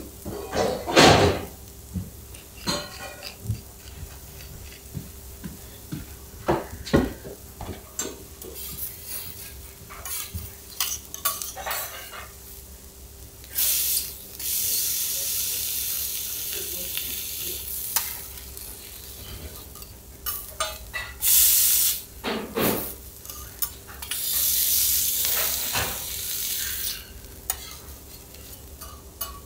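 Teppanyaki cooking of kuruma prawns on a hot iron griddle: metal spatulas clink and scrape against the plate, and the food sizzles. Loud surges of sizzling come three times in the second half.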